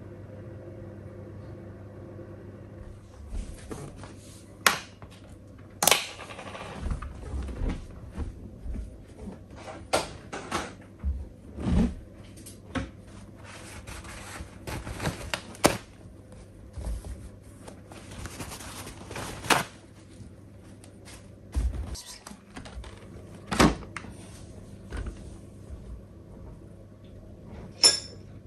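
Kitchen handling sounds: irregular knocks, clicks and clatter of cookware and utensils being moved and set down during cooking, over a steady low hum. The knocks start a few seconds in.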